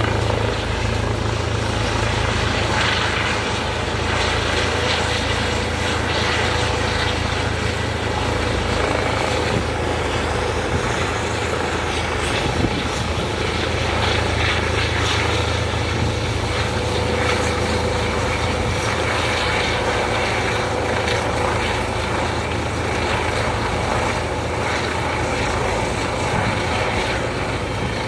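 Helicopter running steadily as it approaches and comes in low, a continuous rotor and engine noise with a low hum beneath.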